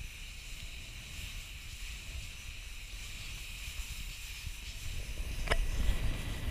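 Wind buffeting the microphone of a camera moving fast down a sand dune on a sandboard run: a low rumble that grows louder about five seconds in, with a single sharp click just before.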